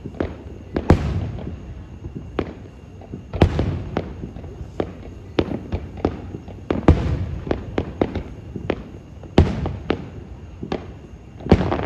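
Aerial firework shells bursting overhead: five loud bursts roughly two and a half seconds apart, each with a trailing rumble, and many smaller sharp bangs and pops between them.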